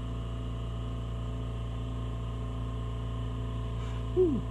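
Oxy-propane torch flame burning steadily with a constant hiss and hum. Just over four seconds in, a short falling vocal sound.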